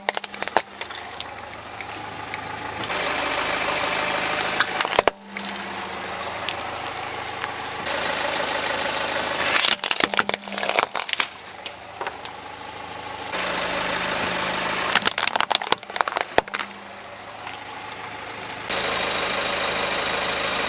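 Car engine idling while a tyre rolls over small toy vehicles, crushing them with clusters of sharp cracks and crunches about four times.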